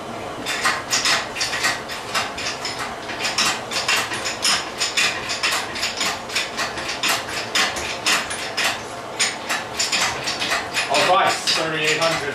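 Rapid, irregular metallic clicking and clanking, several strikes a second, from hands and tools working on a car engine hanging from an engine hoist. A man's voice speaks briefly near the end.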